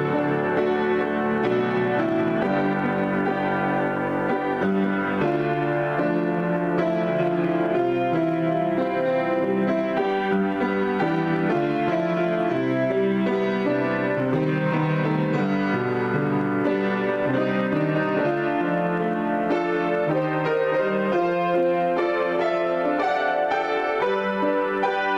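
Grand piano played solo in an unbroken improvisation, chords and notes ringing over one another.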